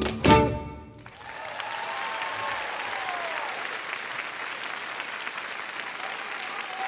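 Live Kalotaszeg folk music ends on a last sharp accented chord, and about a second later an audience breaks into steady applause.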